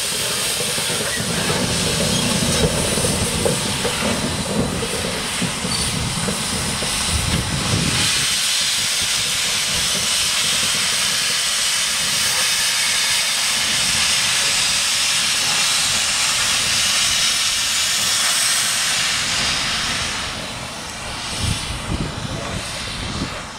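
GWR King class 4-6-0 steam locomotive 6023 blowing steam from its open cylinder drain cocks: a loud, steady hiss that drops away near the end.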